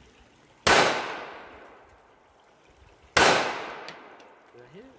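Two gunshots about two and a half seconds apart, each sharp crack followed by a long echo that fades away.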